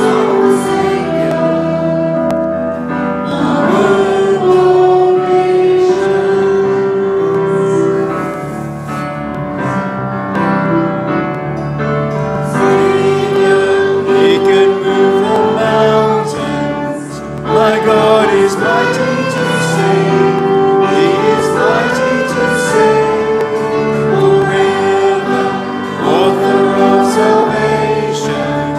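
A church congregation singing a worship song together, with a man's voice leading at the microphone. The melody moves in long held notes.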